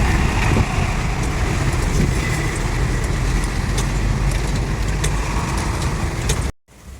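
Steady street noise dominated by a low rumble of road traffic, with scattered small clicks and knocks over it. It cuts off suddenly near the end and comes back quieter.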